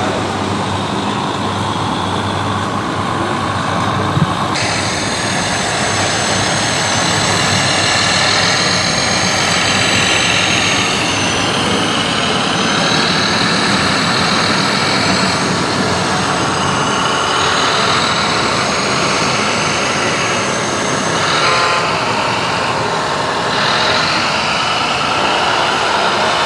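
Radio-controlled model construction trucks running: a steady mechanical whine from their electric motors and gearboxes, rising and falling in pitch as they drive and work. A higher whine joins about four seconds in.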